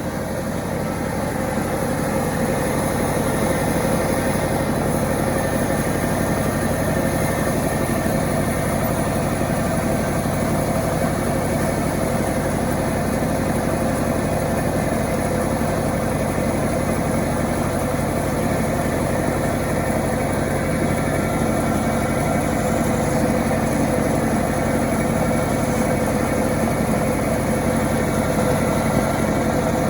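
Homemade, self-assembled chainsaw's engine running steadily, growing louder over the first few seconds and then holding an even note.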